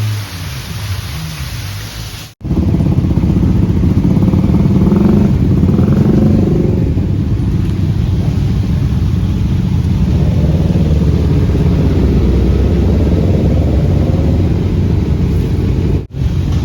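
Motorcycle engine running and revving while riding, a loud low rumble with wavering pitch, mixed with wind noise. It starts abruptly about two seconds in, and the sound cuts off suddenly near the end.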